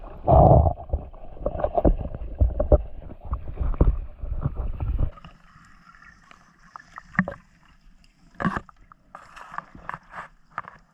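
Water splashing and sloshing around a camera held at the surface, with many sharp knocks. About five seconds in it cuts to a quiet, muffled underwater sound with scattered clicks and knocks.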